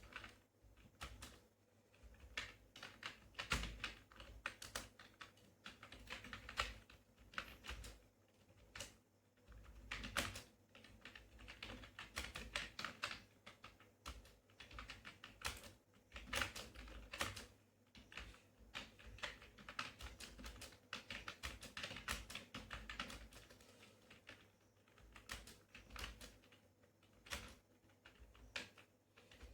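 Touch-typing on a computer keyboard at test speed: keys clicking in quick, irregular runs with brief pauses.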